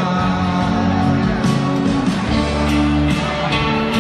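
Live band playing with guitar to the fore and little or no singing; a stronger bass note comes in a little past halfway.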